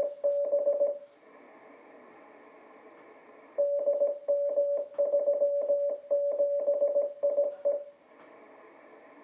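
An amateur radio beacon on the 12-meter band sending Morse code, heard through a Yaesu FT-950 HF transceiver as a single steady beep keyed on and off in dots and dashes. The keying stops about a second in, leaving a couple of seconds of faint band-noise hiss. It starts again for about four seconds and gives way to hiss again near the end.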